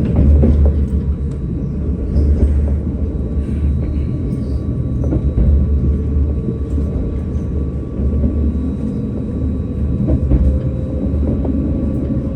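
Tram running on its rails: a steady low rumble with a faint motor whine that climbs slightly in pitch near the end.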